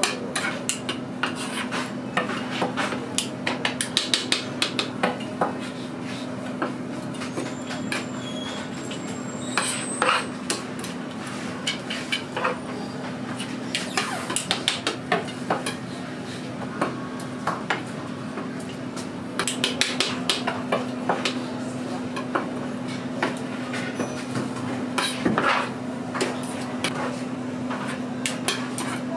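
A long metal knife scraping and tapping on a plastic cutting board as fish-cake paste is spread and cut into strips: irregular clicks and scrapes, in clusters, over a steady low hum.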